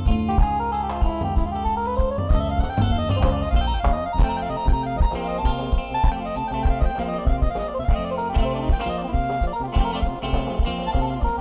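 Band music with a drum kit keeping a steady beat under pitched instruments, with keyboard nearby; a rising glide in pitch comes about one to three seconds in.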